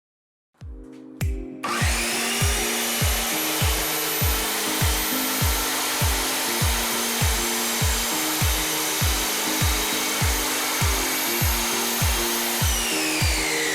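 Ozito 210 mm 1600 W compound mitre saw switched on, spinning up and running under load with a steady whine and cutting hiss, then its whine falls as the blade spins down near the end. A background music track with a steady kick-drum beat plays throughout.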